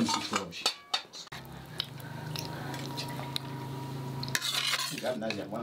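A metal fork clinking and scraping against a metal pan and plate as stew is dished out, with sharp clicks in the first second and again near the end. A steady low hum runs through the middle.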